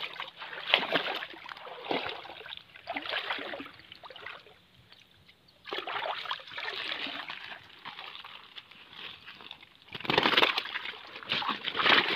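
Shallow pond water sloshing and splashing in irregular bursts as hands and a fishing net are worked through it at the bank. There is a lull a little before the middle, and the loudest splashing comes near the end.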